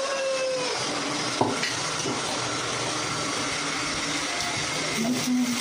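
Steady rushing background noise, with a single sharp knock about a second and a half in and a brief low voice-like hum near the end.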